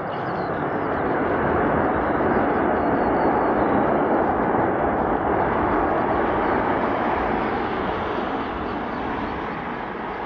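Boeing 737-300 rolling out on the runway just after landing, its two jet engines giving a steady roar. The roar swells about a second in, holds, then slowly eases as the aircraft moves away.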